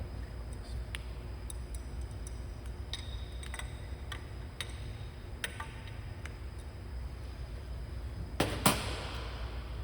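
Scattered light clicks of metal tools and parts being handled, then two sharp metallic clanks in quick succession near the end, over a steady low hum.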